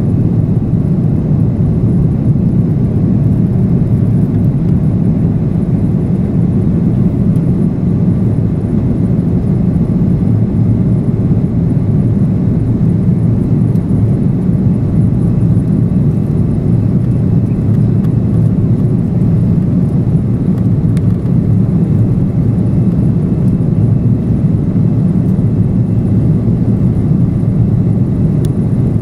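Jet airliner cabin noise during the climb after takeoff: the engines and rushing air make a loud, steady low roar.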